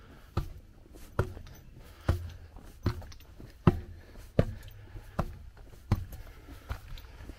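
Footsteps climbing a steep metal stairway, a steady step a little more often than once a second, each landing as a short knock on the tread.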